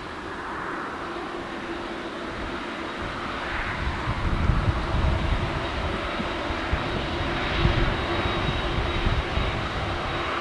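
Jet engines of a taxiing Boeing 747-8F freighter: a steady whine over a low rumble, growing louder a few seconds in.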